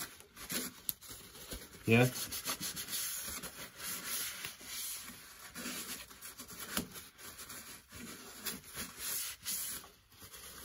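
Shop cloth rubbing and wiping along a metal bar held in a lathe chuck, an uneven scrubbing sound that comes and goes with the strokes.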